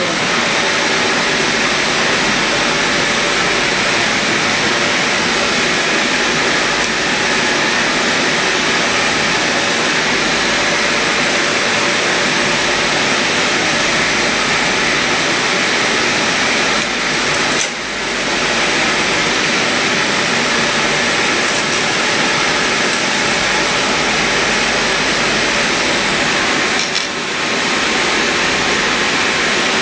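Electric arc welding with a compact welding machine: a loud, steady hiss of the arc, broken off briefly twice, about two-thirds of the way through and near the end.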